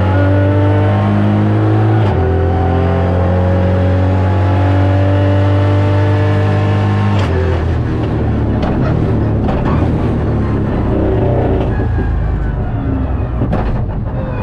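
Ford Fiesta R2T rally car's turbocharged 1.0-litre three-cylinder engine, heard from inside the cabin under hard acceleration: the note rises, drops once for an upshift about two seconds in, then rises again. About seven seconds in the engine note falls away as the car slows, and the rest is a lower, rougher running with scattered clicks and knocks.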